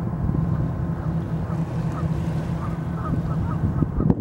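Steady low engine drone from a passing bulk cargo ship, with wind rushing on the microphone. Faint short bird calls repeat over it, and a single sharp knock comes just before the end.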